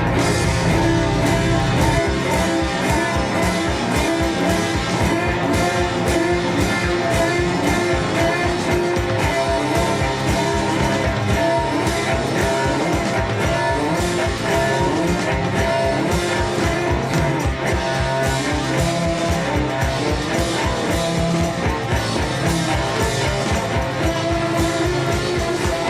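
Background rock music with electric guitar and a fast, steady beat.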